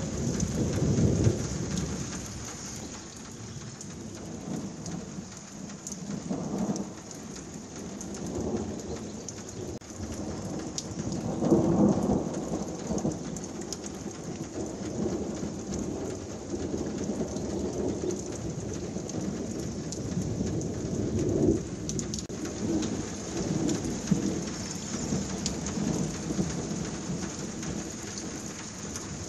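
Heavy downpour of a thunderstorm falling steadily, with thunder rumbling again and again; the loudest peals come about a second in and about twelve seconds in.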